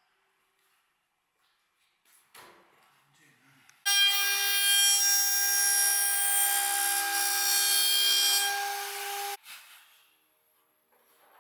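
Woodworking router spindle running at high speed, its bit cutting a profile into a small wooden block, with a loud, steady high-pitched whine. It starts suddenly about four seconds in and cuts off abruptly some five seconds later, after a single light knock.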